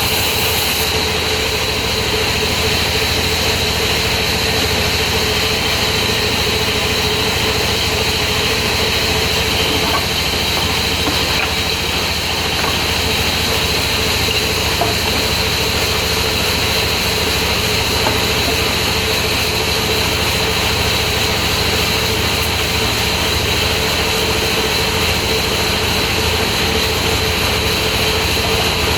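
Sawmill machinery running steadily: a constant mechanical drone with a steady high whine and no break.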